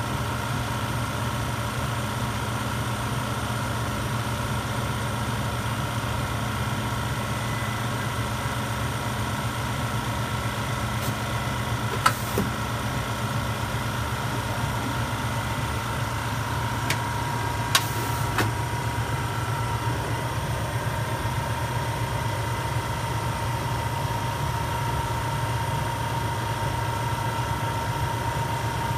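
Pizzametry automated pizza-making machine running with a steady mechanical hum, with a few sharp clicks about midway.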